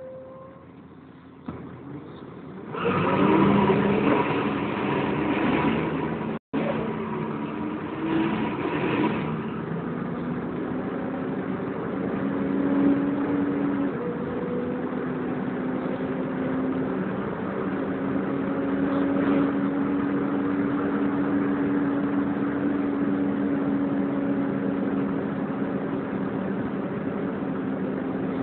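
Volvo B10BLE bus engine and drivetrain heard from inside the bus. It gets much louder about three seconds in, then runs on steadily under way.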